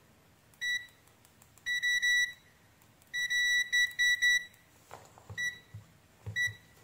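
ANENG digital multimeter beeping, a single high tone in short and broken pulses: a short beep, then longer runs chopped up as the two needle probe tips make and lose contact with each other. Two more short beeps near the end come with faint clicks.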